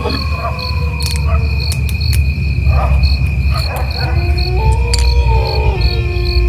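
Crickets chirping steadily, a high trill with a pulsing chirp about three times a second, over a low rumble. From about four seconds in, slow eerie sustained tones come in and step down in pitch.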